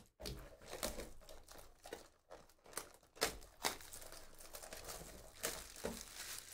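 Clear plastic shrink-wrap being torn and crinkled off a sealed trading card box, a dense run of crackles with sharp snaps.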